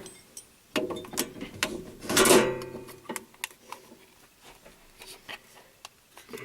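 Keys being handled and worked in a lock: a string of sharp clicks and knocks, with a louder rattle about two seconds in.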